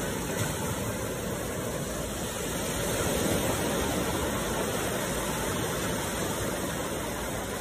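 Sea surf: a steady rush of waves washing onto a shore, swelling slightly about three seconds in.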